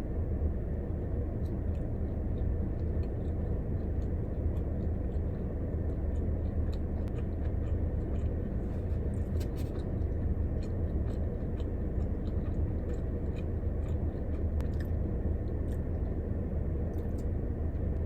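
Chewing, with scattered small clicks, over a steady low rumble in a car cabin.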